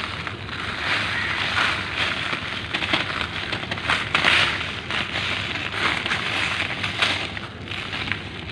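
Dry lumps of reused cement crumbled by hand onto a plastic sheet: continuous gritty, crunchy crumbling, full of small crackles, as the powder and crumbs fall onto the plastic.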